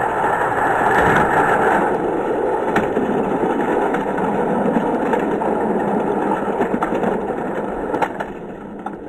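Six Hot Wheels die-cast cars rolling together down a plastic track, a steady rolling noise of small wheels on plastic. A few sharp clicks near the end as they reach the finish.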